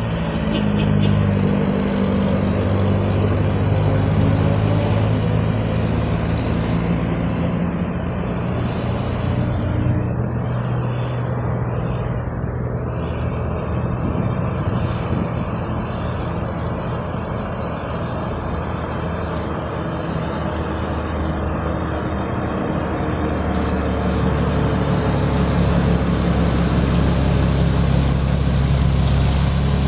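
Diesel engines of a jeepney and heavy trucks rounding a hairpin bend at low speed, a steady engine drone that drifts in pitch. It grows louder and deeper from about three-quarters of the way through as a large tarp-covered truck pulls past close by.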